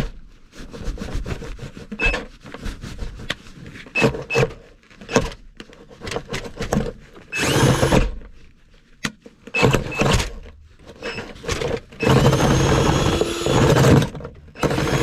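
Cordless drill boring 1 3/8-inch holes through a wooden ceiling joist, running in repeated start-stop bursts, the longest about two seconds near the end.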